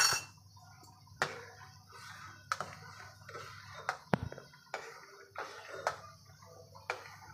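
Steel spoon stirring hot milk in a metal pot, clinking and scraping against the pot at irregular moments, about once a second, over a low steady hum.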